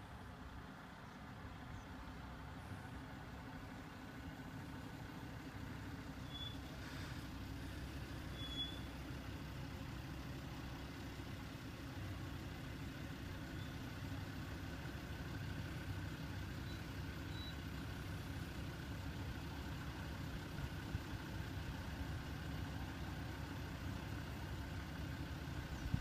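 A vehicle engine running, a low steady rumble that grows slowly louder, with two faint high chirps about six and eight seconds in.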